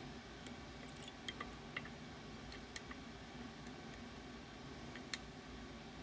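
Small sharp clicks and taps of metal tools working a Ruko Garant 10 lock, scattered through the first three seconds, with one louder click about five seconds in, over a steady faint hiss.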